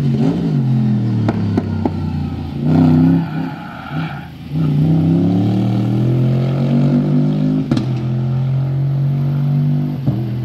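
A Cobra roadster's engine running hard on the track, its pitch shifting with throttle and gear changes. It dips briefly around four seconds in, then pulls steadily again.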